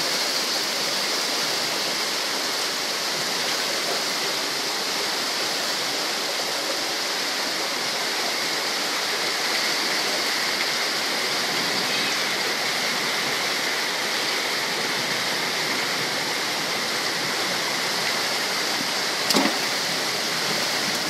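Rain-swollen stream rushing steadily, a constant hiss of running floodwater. A brief knock about nineteen seconds in.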